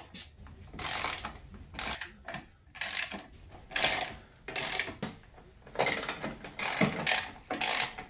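Hand ratchet wrench tightening the chaincase (drop case) cover bolts on a snowmobile: a run of short ratcheting strokes, about one a second.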